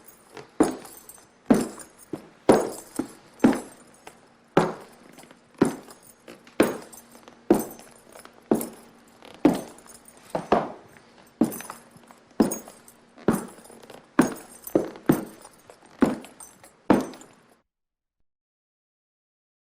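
Footsteps walking at a steady pace of about one step a second, each step a sharp crunch or knock. The steps come a little faster near the end and stop about three-quarters of the way through, leaving silence.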